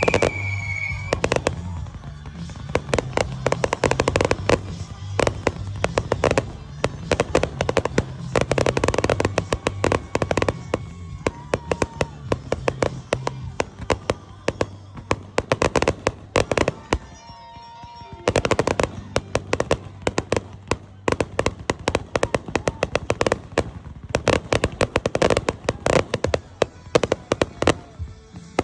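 Fireworks going off in dense rapid volleys of crackling reports and bangs, coming in clusters with short lulls between them. A high whistle dies away about a second in, and music with a steady bass line plays under the first half.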